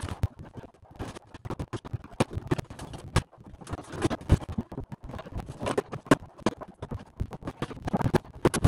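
Old interior wall covering panels being torn out of a boat cabin by hand: a dense run of irregular cracks, knocks and scraping.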